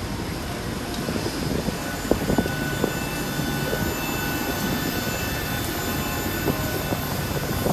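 Jet airliner engines running steadily, a low hum with a thin high whine over it and a few brief knocks.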